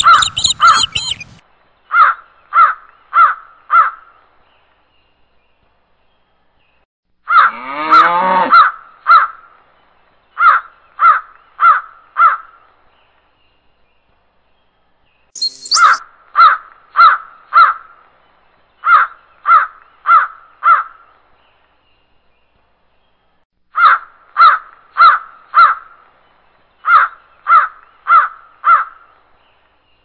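Crows cawing in runs of three to five caws, a little under two caws a second, with pauses of a few seconds between runs. A longer call that rises in pitch breaks in about seven seconds in.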